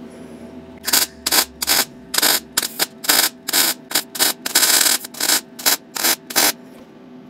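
MIG wire-feed welder welding up a crack in a steel truck frame in short stitches: about a dozen separate bursts of arc crackle, most a fraction of a second long, with one longer run of about half a second near the middle.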